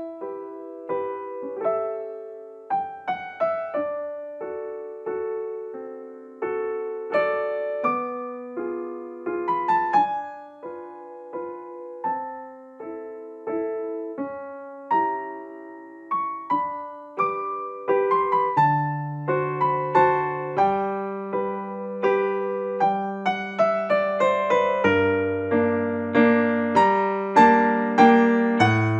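Background piano music: a gentle melody of struck notes over chords, with bass notes coming in about two-thirds of the way through and the playing growing fuller near the end.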